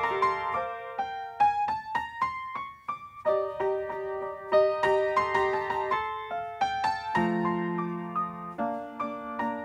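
Solo piano playing a slow classical-style piece. A rising run of single notes comes about a second in, and a low chord is held near the end.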